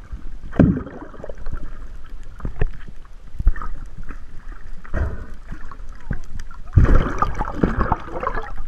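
Water sloshing and splashing close around a camera at the water's surface, with a low rumble and irregular heavy bumps, the loudest cluster near the end.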